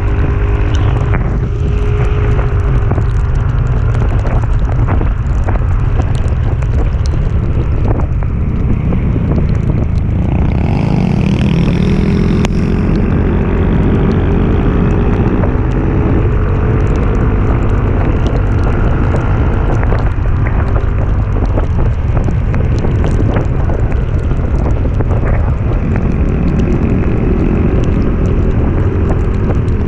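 Motorcycle engine running under load on a climb, with heavy wind buffeting the microphone; the engine pitch rises about ten seconds in.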